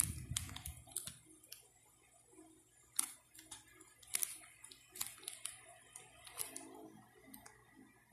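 Irregular light clicks and soft plastic crinkles from fingers handling coins in the clear vinyl pockets of a coin album page.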